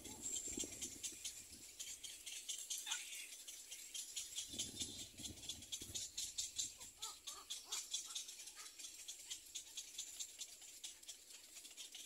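Little egret chicks in the nest giving a fast, dry, high-pitched ticking chatter. A brief low rumble comes about four and a half seconds in.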